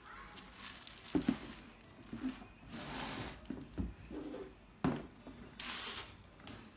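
Handling noises: rustling, with a few sharp knocks as stiletto high heels are set down on a cardboard shoebox lid.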